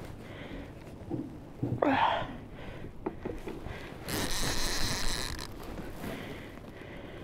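Fishing reel drag buzzing for about a second and a half, about four seconds in, as a heavy fish pulls line off against the bent rod. A short rasping sound, the loudest moment, comes about two seconds in.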